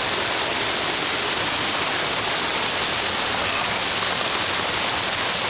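Rain-swollen mountain creek rushing in flood, a loud, steady hiss of flowing water.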